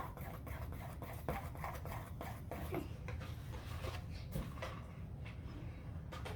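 Faint, irregular scraping and clicking of a spoon and containers against a mixing bowl while slime ingredients are handled and stirred.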